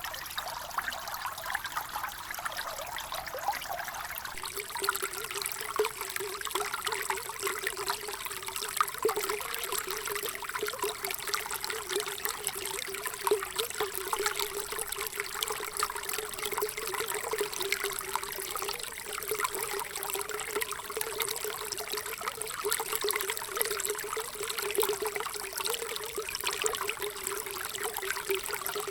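Running water trickling and splashing steadily, full of small fine drips and bubbles. About four seconds in the sound changes character, gaining a steady low gurgling note, as if a new clip or flow takes over.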